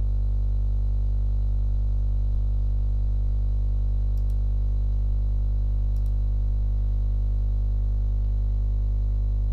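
Steady, loud electrical mains hum: a low buzz with many evenly spaced overtones, unchanging throughout. Two faint clicks come about four and six seconds in.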